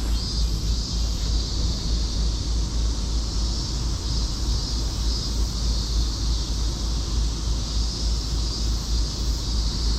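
Cicadas singing in a steady, unbroken high chorus, under a strong low rumble of wind on the microphone.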